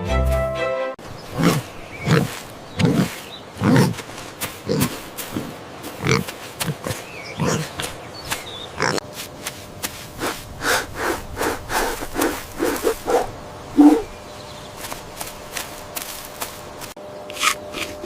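Pig grunting, a run of short, low grunts coming roughly once a second, then a busier patch of quicker, mixed grunts.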